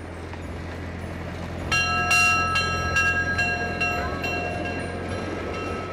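Brass bell on a small amusement-park train's locomotive, rung repeatedly about twice a second from about two seconds in, each strike ringing on. Under it, the train's steady low running hum.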